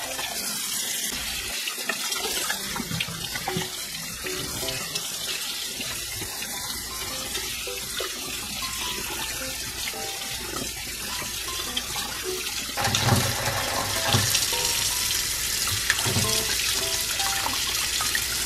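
Kitchen faucet running water into a plastic bowl of romaine lettuce leaves and then a tomato, which are rinsed by hand; the water splashes louder as the leaves are lifted and handled in the second half.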